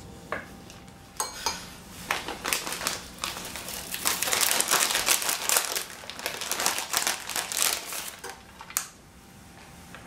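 Plastic bag of shredded mozzarella crinkling as it is handled. A dense run of crackling starts about a second in, is loudest in the middle and dies away near the end.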